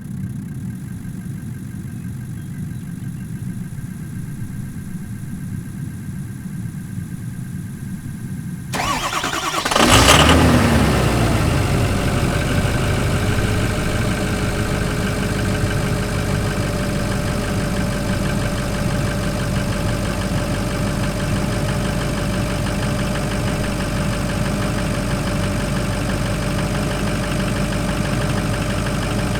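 Diesel pickup engine starting: a low rumble for about nine seconds, then the engine fires, revs up briefly and settles into a steady idle.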